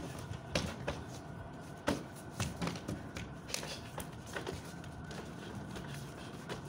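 Irregular slaps and scuffs from a barefoot sparring bout on concrete: feet shuffling and blows landing, with the sharpest slap about two seconds in.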